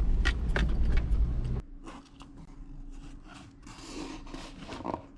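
Low rumble of a vehicle with a few sharp clicks and jingles. About a second and a half in it cuts to a much quieter stretch of light clicking and rustling over a faint steady hum.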